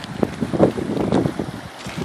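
Flood water splashing and rushing in irregular surges, with wind buffeting the microphone.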